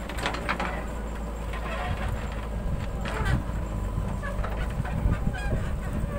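JCB 3DX backhoe loader's diesel engine running steadily as the backhoe bucket digs into the soil, with a few sharp clanks from the bucket and arm near the start and again about three seconds in.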